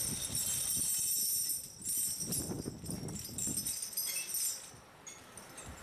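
Heavy steel tyre chains for a snow-removal motor grader clinking and jangling as they are handled, with irregular metallic rattles.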